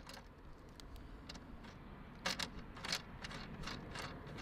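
A few light, irregular clicks and taps of small metal parts being handled, such as rivet nuts and the rivet-nut setting tool, over a low steady background.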